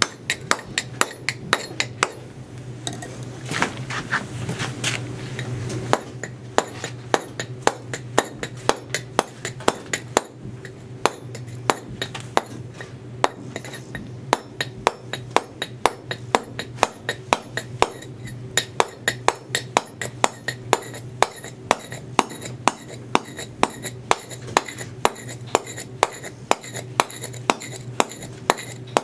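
Mallet striking a mason's chisel as it cuts a chamfer on a block of pale stone: steady, even blows about two a second. The blows stop briefly a few seconds in, then carry on at the same pace.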